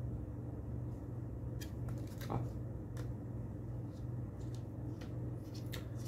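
A few faint clicks and taps from handling a laptop hard-drive caddy and a screwdriver, over a steady low hum.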